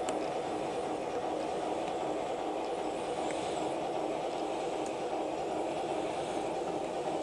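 MTH O-gauge model train running, a steady rumble as the Rock Island passenger cars roll past on the track, with a few faint clicks.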